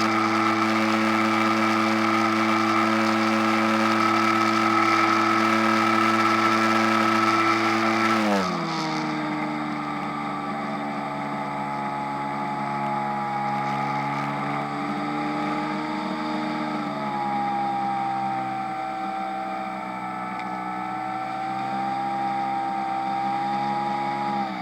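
Radio-controlled model airplane's motor running steadily at high throttle, then throttled back about a third of the way in, its pitch dropping and holding lower with small shifts up and down.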